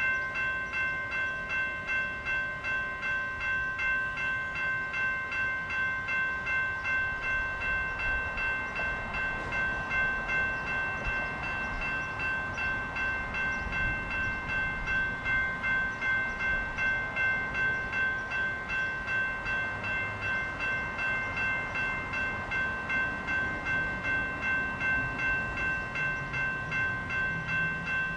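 NEG electronic railroad-crossing bell ringing with an even, steady rhythm of strikes, sounding the warning while the crossing is active and the gates are down.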